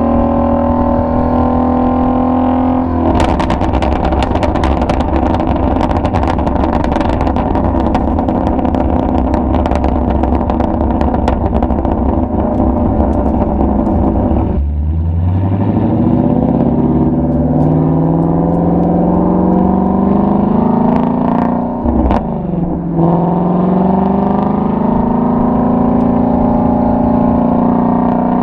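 Shelby GT350's flat-plane-crank V8 exhaust: a steady drone, then from about three seconds in a long run of crackling and popping. Past the middle the engine note climbs steadily as the car accelerates, dips briefly at a gear change and climbs again.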